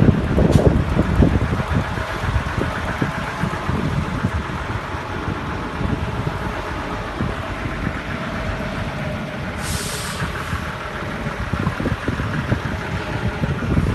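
Small LPG bobtail tanker truck running, with wind buffeting the microphone. About ten seconds in there is a short burst of hiss.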